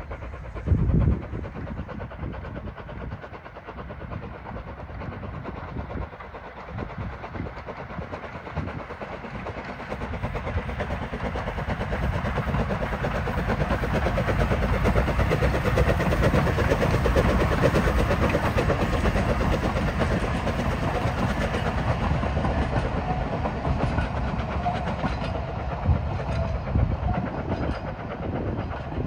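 Isle of Man Railway Beyer Peacock 2-4-0T steam tank engine working a train of coaches past. It grows louder as it approaches, is loudest midway through, then fades as it goes behind trees. A sharp thump comes about a second in.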